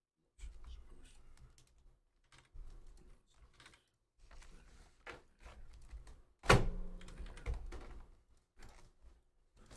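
Irregular typing on a computer keyboard in short runs of clicks. One loud thump comes about six and a half seconds in.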